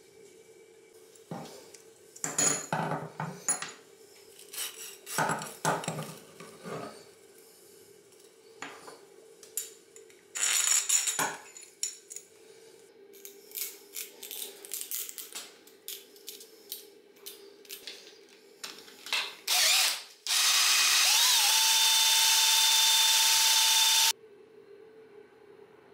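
Scattered clatter and rustling as steel-mesh scouring pads and a threaded rod are handled. About 20 seconds in, a power drill spins the pads inside the cylinder bore: its pitch rises as it gets up to speed, it runs steadily for about four seconds, then it stops abruptly.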